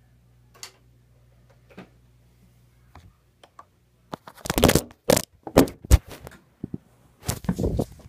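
Handling noise from the recording camera being moved and gripped: a low steady hum at first, then two clusters of loud knocks, rubs and thumps, about halfway through and again near the end.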